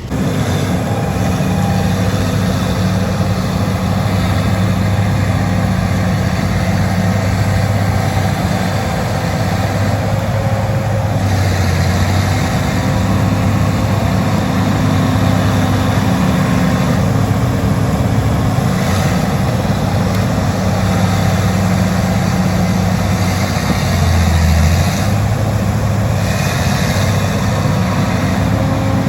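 Bulldozer's diesel engine running steadily with a deep, even hum while dragging a very heavy log; its pitch dips briefly near the end.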